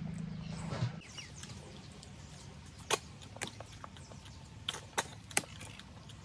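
Eating cooked snails by hand: about five short, sharp clicks and smacks in the middle stretch as the snail shells are handled and eaten. A low hum stops about a second in.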